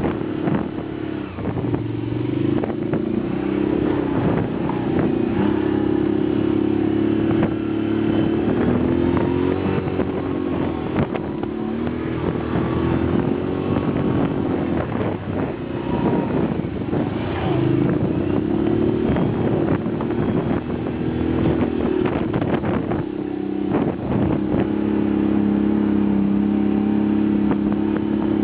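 Can-Am motorbike's engine running under way, its pitch rising and falling again and again as the throttle opens and eases off, with bumps and wind noise over it.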